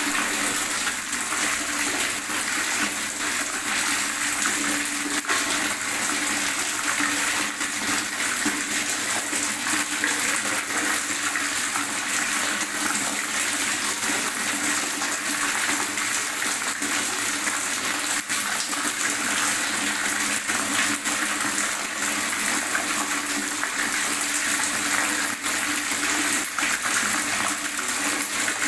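Water gurgling and splashing steadily, a continuous bright rushing with fine bubbling flicker.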